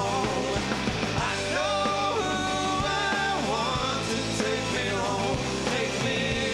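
Live rock band playing: a male voice singing over electric guitar, bass and drums.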